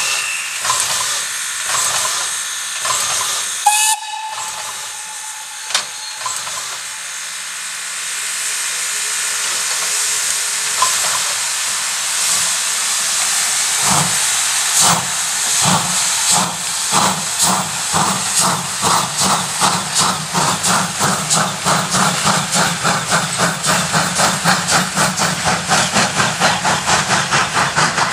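Ty2 2-10-0 steam locomotive starting its train: steam hissing, then exhaust chuffs beginning about halfway through and quickening to about four a second as it gathers speed.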